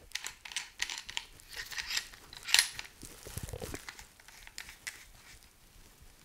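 Small clicks and rattles of a hand riveting tool being handled, as a blind rivet nut is screwed onto its threaded mandrel, with a sharper click about two and a half seconds in.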